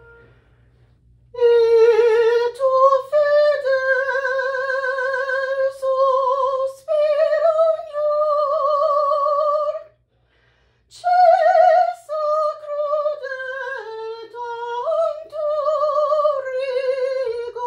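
A woman singing a vocal exercise with strong vibrato, holding notes that move step by step up and down, in two phrases with a short breath about ten seconds in.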